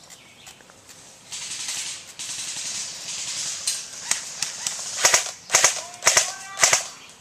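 Airsoft guns firing: five or six sharp cracks about half a second apart in the last few seconds, after a couple of seconds of rustling hiss.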